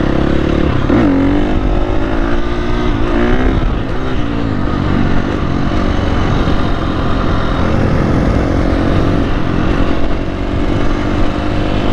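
Dirt bike engine running on the move, its pitch climbing and dropping back twice in the first four seconds as it goes up through the gears, then running steadily at cruising speed.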